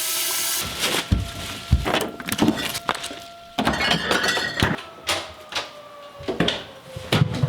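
A civil-defence warning siren wails in the background, its tone holding steady and then slowly falling. Over it comes a quick run of clattering knocks, thunks and glass-like clinks as objects are handled in a hurry.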